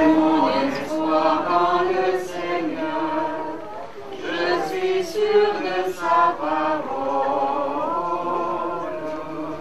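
Choir singing slow, sustained notes, the voices gliding from pitch to pitch.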